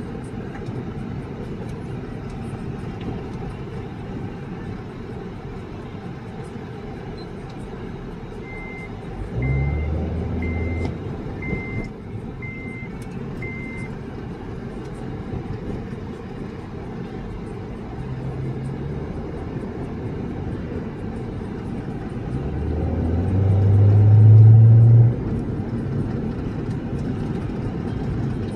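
Steady road and engine noise inside the cabin of a 2010 Acura TSX being driven. About a third of the way in, six short high beeps sound about a second apart. The engine note swells twice, most loudly near the end, where it rises for a few seconds and then drops off suddenly.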